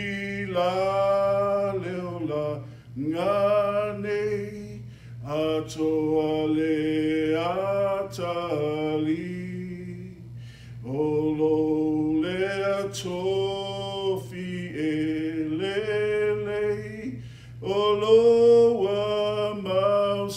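A man singing a Samoan hymn in long held, sustained phrases, with short breaks between the lines.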